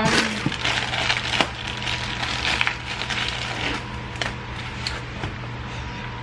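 Clear plastic packaging crinkling and crackling as it is handled and pulled off a perfume, dense for the first three seconds or so, then only a few scattered clicks.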